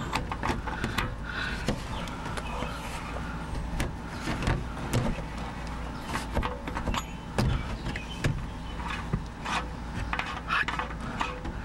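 Irregular clicks and knocks of hands and tool working the oil filter housing of a Toyota 2GR-FE engine as it is unscrewed by hand from under the car, over a low steady hum.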